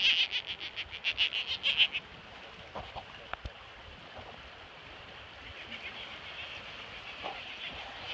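A rapid rattling series of high-pitched animal calls, about ten pulses a second. It is loud for the first two seconds, then comes back fainter in the second half.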